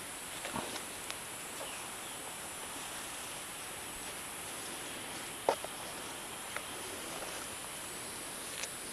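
Quiet outdoor background with a steady hiss, broken by a few short clicks and knocks from backpack straps and gear being handled; the sharpest knock comes about five and a half seconds in.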